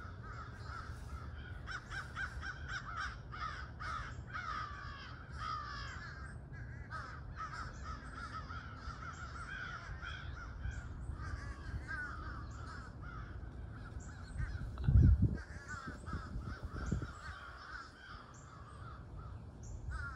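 A flock of crows cawing overhead, many overlapping caws, thickest in the first six seconds and then more scattered. A loud low thump comes about three-quarters of the way through, with a smaller one a couple of seconds later.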